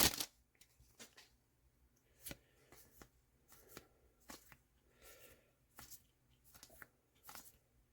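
Trading cards being flipped through one at a time: faint, short soft slides and flicks of card on card, about one or two a second.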